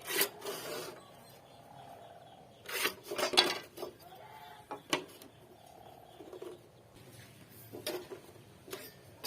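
Hand tools working a wooden beam: irregular knocks and short scraping strokes, with a cluster of strikes about three seconds in and a single sharp click around five seconds in.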